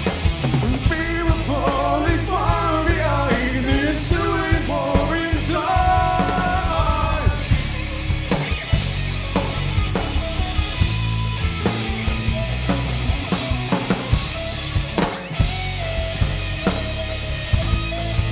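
Live rock band playing: drum kit with steady hits, bass and electric guitar, with a high melodic line over them for the first seven seconds or so.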